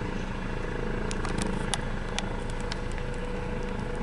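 Medical helicopter's rotors and turbine engine running as it powers up for a straight vertical lift-off, with a scatter of sharp clicks about a second in.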